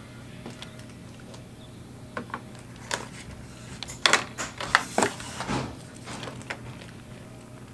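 Clear plastic packaging and foam wrap of a model train car being handled and opened: scattered crinkles and clicks, busiest and loudest about four to five seconds in, over a faint steady hum.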